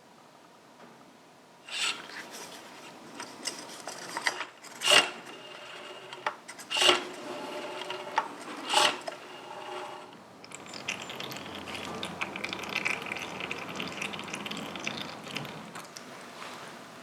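Metal parts and hand tools clinking and knocking on a workbench, with three sharp ringing knocks about two seconds apart, then a steady scraping rub lasting several seconds.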